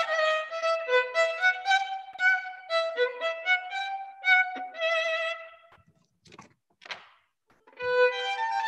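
Solo violin played with the bow, a melody of separate sustained notes, heard over a video call. The playing breaks off for about two seconds around six seconds in, with only a couple of faint noises, then resumes near the end.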